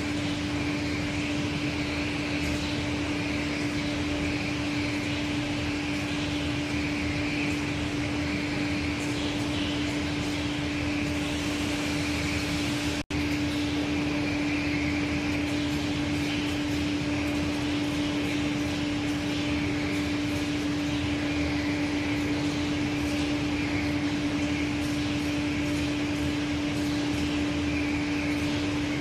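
Aschersleben SZ 2000x1500x9000 guideway grinding machine (built 1988) running at its work: a steady machine hum with one strong low tone and an even hiss that swells and fades a little. The sound cuts out for an instant about halfway through.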